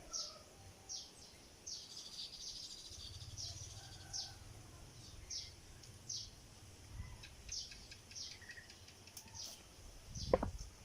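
Small nest-building birds chirping over and over, short high chirps about once or twice a second with a brief rapid trill about two seconds in. A sharp knock near the end is the loudest sound.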